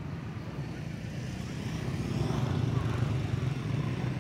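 Low engine rumble of a passing motor vehicle, growing louder about two seconds in.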